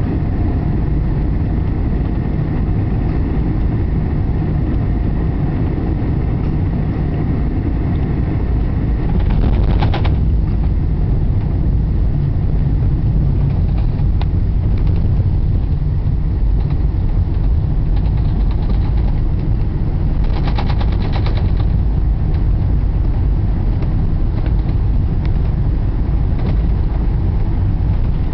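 Airliner cabin noise heard from a window seat over the wing during landing: a loud, steady rumble with faint engine tones that fade out after about nine seconds. A short rattle comes about ten seconds in and another about twenty seconds in as the plane rolls along the runway.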